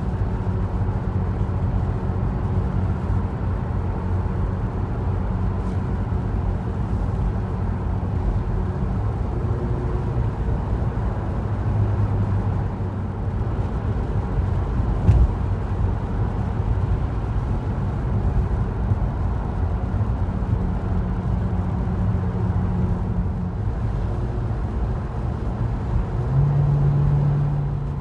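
A car driving at highway speed, with a steady low rumble of road and engine noise. A few low hums rise and fade, and there is a single sharp knock about fifteen seconds in.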